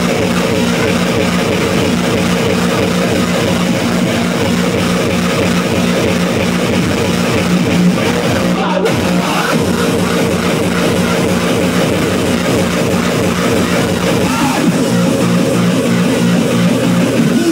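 Loud hardcore techno over a club sound system: a fast, steady pounding kick drum under held distorted tones.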